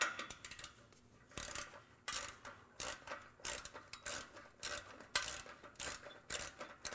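Hand ratchet with a 15 mm socket backing out the bolt that holds the stock cat-back exhaust on: a run of about ten short ratcheting strokes, roughly one and a half a second, each a quick burst of clicks.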